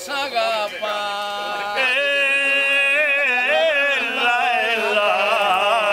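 Men singing a Cretan rizitiko unaccompanied, in long held notes with wavering, ornamented turns.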